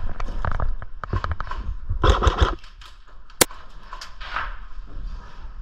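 Quick run of footsteps on hard ground with gear rattling, then a single sharp crack about three and a half seconds in.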